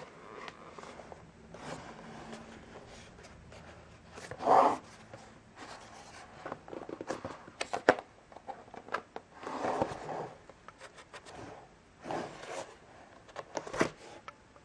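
Hands working at a cardboard box and its lid flap: irregular scraping and rustling of cardboard with scattered sharp clicks and taps, loudest about four and a half seconds in and again near ten seconds.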